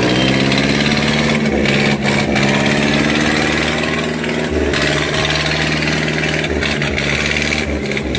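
Farmtrac 6055 tractors' diesel engines running hard at high, steady revs under heavy pulling load, hard enough to lift the front wheels of one tractor off the ground.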